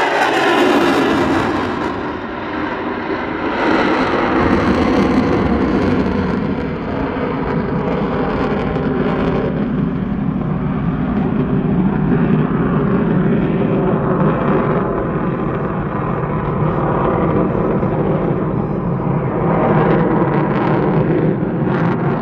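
F-35A Lightning II's single F135 afterburning turbofan running in afterburner: a loud jet roar whose pitch drops over the first couple of seconds as the jet passes, then a steady roar as it climbs away.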